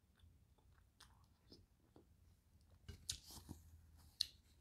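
Faint mukbang eating sounds: soft chewing and light clicks from a metal fork. There is a brief rustle of a paper napkin about three seconds in, and a single sharp click just after four seconds.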